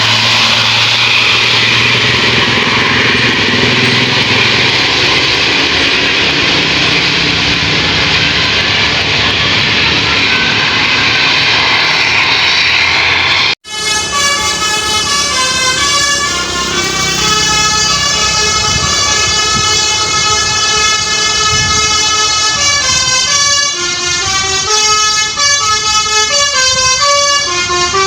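Bus running with a loud, even rush of engine and road noise. After an abrupt cut, a telolet basuri musical horn plays a tune of stepping notes, like a flute melody.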